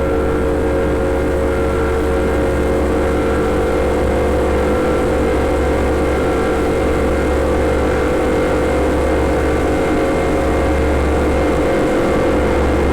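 Elektron Digitone FM synthesizer playing a steady, unbroken electronic drone: a deep low hum under several held tones, with a noisy texture.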